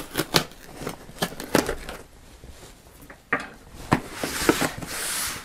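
Cardboard shipping box being opened: the packing tape slit with a letter opener, with scattered sharp clicks and knocks of cardboard, then a longer scraping tear near the end as the flaps are pulled apart.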